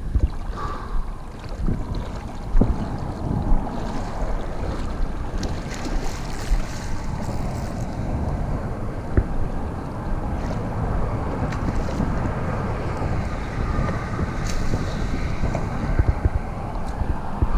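Steady wind buffeting the microphone, a low rumbling haze with a few small knocks.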